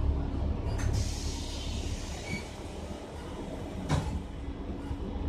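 Inside a city bus under way: a steady low rumble that eases about a second in, a high hiss lasting a couple of seconds, and one sharp knock about four seconds in.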